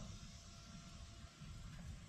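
Faint background noise: an uneven low rumble under a steady hiss, with no distinct event.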